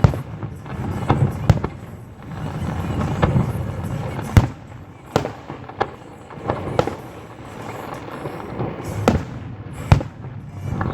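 Aerial fireworks shells bursting: about ten sharp bangs at irregular intervals over a low rumble from the display.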